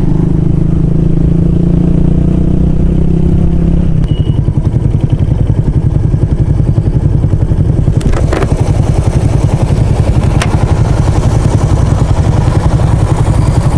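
Suzuki VanVan 200's single-cylinder four-stroke engine running while the bike is ridden. The note is steady at first, then from about four seconds in it turns into a fast, even pulsing beat.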